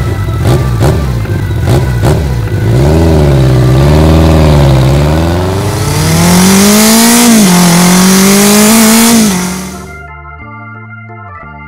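Motorcycle engine sound effect: a few sharp pops, then revving up and down and climbing in pitch as the bike pulls away. It fades out near the end, where organ music takes over.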